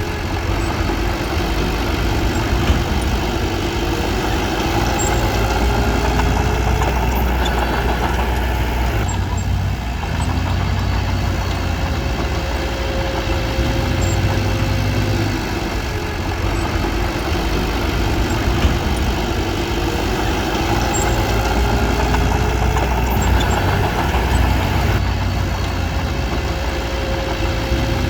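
Diesel engine of a small Komatsu D21P crawler bulldozer running steadily, its note rising and falling a little as it works.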